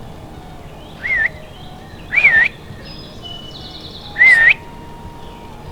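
Songbirds singing: three loud, clear whistled notes that swoop down and up, about a second apart, with fainter high, buzzy trills from other birds in between.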